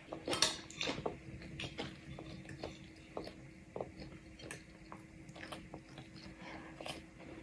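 A toddler eating from a bowl: scattered faint clicks and scrapes of a metal spoon against the bowl, with chewing.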